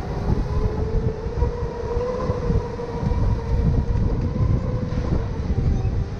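Electric go-kart's motor whining under way, the pitch rising a little and then easing down with speed, over a steady low rumble of the kart running on the track.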